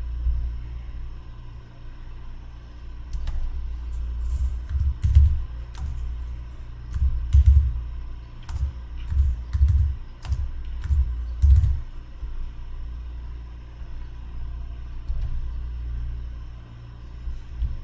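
Computer keyboard being typed on in irregular clusters of keystrokes, entering values into a form, over a steady low hum.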